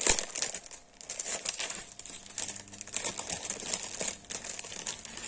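Clear plastic packaging crinkling as it is handled and opened, irregular crackles throughout with a sharp snap at the very start.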